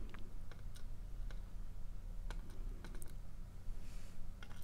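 Light, sharp clicks of steel tweezers tapping and picking at tiny lock pins and springs in a pin tray, scattered irregularly, over a low steady hum.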